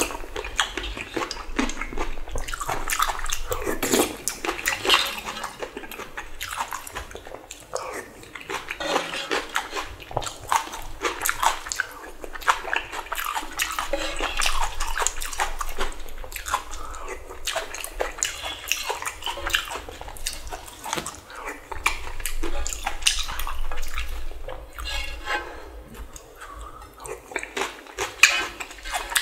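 Close-miked eating sounds: wet slurping and chewing of spicy ramen noodles and broth with bean sprouts, in bursts with short pauses.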